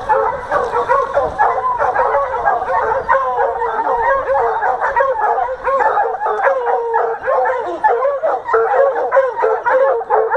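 Pack of hunting hounds baying together in full cry, many voices overlapping without a break.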